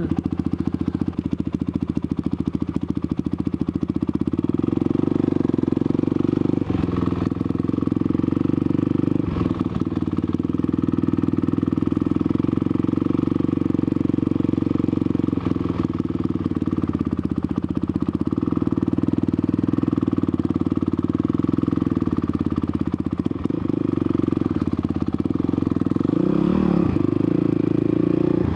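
Motorcycle engine running steadily under way, getting louder about four seconds in and easing off briefly a few seconds before the end.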